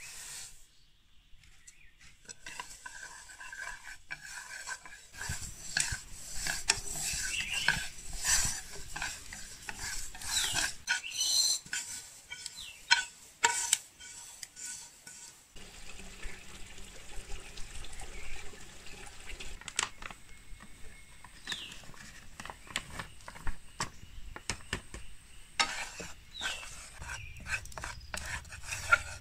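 A spatula stirring and scraping in a dry pan, with scraping, rattling and sharp clicks against the pan as sesame seeds are poured in and stirred, then a spoon stirring flour in a pan.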